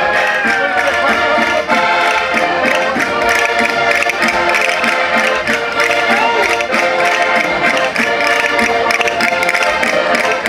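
Several concertinas playing a chula folk-dance tune together over a steady beat.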